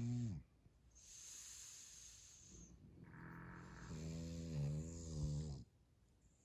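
A French Bulldog snoring in its sleep: a breathy hiss, then a long, wavering pitched snore starting about three seconds in.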